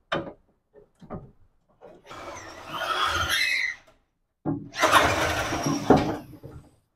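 A tool cutting or grinding metal at a workbench, in two harsh bursts of about two seconds each with a wavering squeal in the first.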